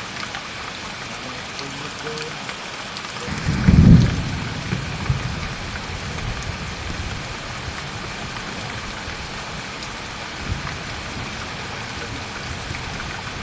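Steady heavy rain hissing, with a brief low rumble about three and a half seconds in that is the loudest moment.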